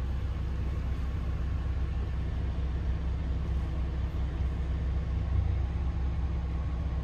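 Inside the cabin of a highway bus on the move: a steady low engine and road rumble with tyre hiss.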